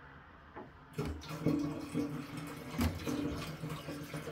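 Liquid glugging out of a 5-litre plastic jug and splashing into the steel fuel tank of an MZ motorcycle, starting about a second in with a few louder gulps. The tank is being topped up with vinegar and hot water for an electrolytic rust-removal bath.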